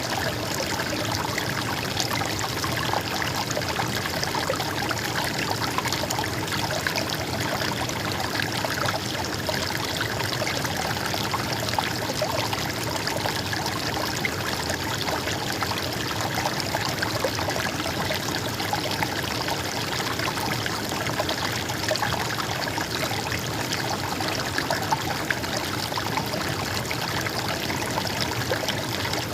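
Small stream of water flowing and trickling over stones, a steady babbling with no pauses.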